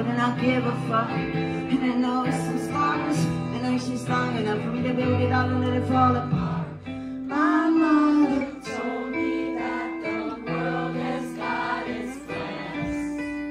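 Live song: a woman singing into a microphone, accompanied by acoustic guitar and low held bass notes.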